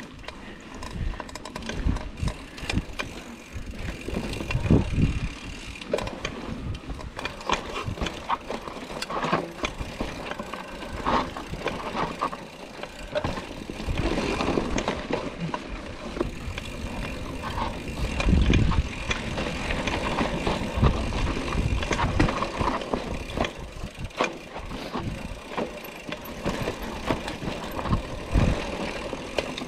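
Hardtail mountain bike ridden along a dirt trail: tyres rolling over the ground, with the chain and frame rattling and knocking over bumps and a few heavier thumps.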